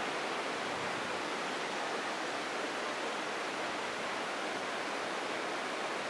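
Small waterfall cascading over boulders into a rocky river pool: a steady, even rush of falling water.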